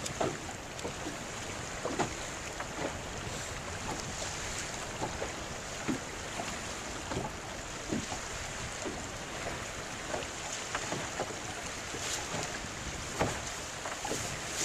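Choppy water slapping against the hull of a small drifting boat in irregular knocks, over a steady rush of wind on the microphone.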